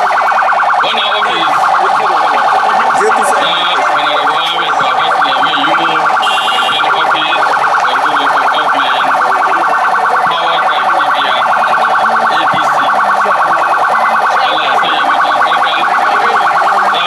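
A loud electronic siren making a steady, fast-pulsing warble that starts abruptly and keeps on without a break.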